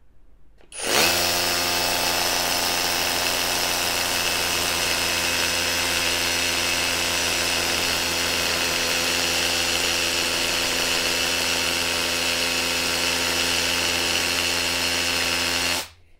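Ingco 20V brushless cordless rotary hammer drill hammer-drilling a 14 mm bit into a concrete block: it spins up about a second in, runs steadily under load for about fifteen seconds, and cuts off suddenly near the end.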